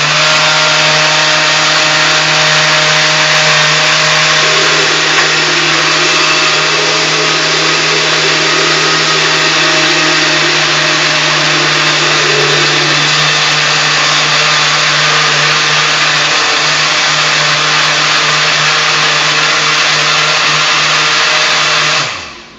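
Countertop blender running steadily as it blends a cream cheese cheesecake mixture with a handful of salmonberries added. It is switched off near the end, and the motor winds down.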